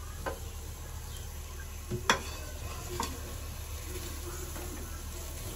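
A few light clicks and taps of sliced raw onions shifting against the bottom and sides of a dry aluminium pot, the sharpest about two seconds in, over a steady low hiss and hum.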